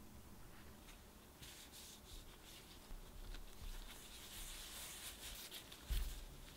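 Gloved hands pressing and patting a disc of crumbly whole-wheat cracker dough flat on parchment paper, with rustling and scraping of the paper and disposable gloves. Near the end comes a low thump as a wooden rolling pin is laid onto the dough.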